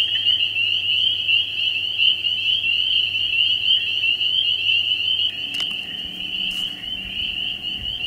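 A frog's continuous high-pitched trill, fast and even, with a couple of faint knocks about halfway through.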